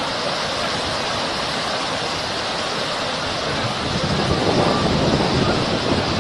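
Steady rush of water from flooding after a heavy downpour. It swells louder with a low rumble about two-thirds of the way through.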